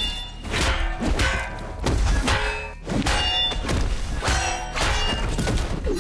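Film fight-scene soundtrack: heavy thuds about once a second over music.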